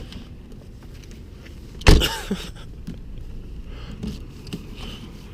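A single loud thump about two seconds in, with a few light clicks over a steady low rumble inside a car.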